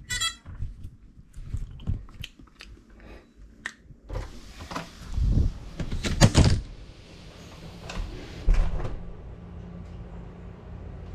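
A short electronic beep from an FPV quadcopter, then knocks, clicks and several heavy thumps as the quad is handled, tilted and set down on a hard floor. After that a steady low hum.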